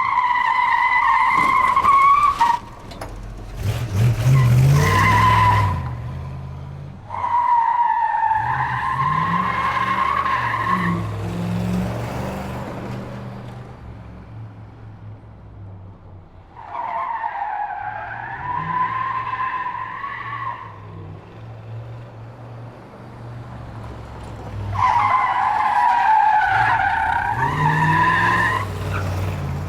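Muscle car drifting, its tyres squealing in about five long, wavering squeals, with the engine running low underneath. A louder, harsher skid comes a few seconds in.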